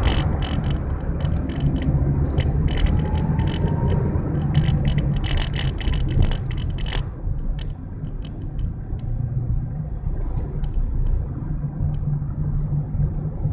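Car driving on a highway, heard from inside: steady low engine and tyre rumble. A quick run of sharp rattling clicks fills the first half and then thins out.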